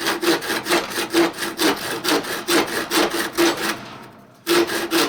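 Hand saw cutting a kerf lengthwise down into the top of a wooden axe handle, where the wedge will go, in steady back-and-forth strokes about two to three a second, with a ringing note from the blade. The sawing pauses briefly a little before the end, then resumes.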